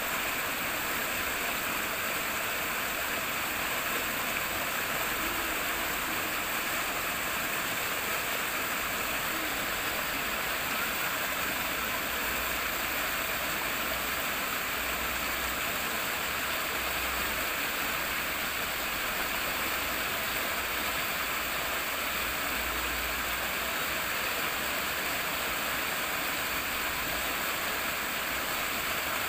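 Flowing water rippling and rushing steadily, a constant hiss of moving water with no change.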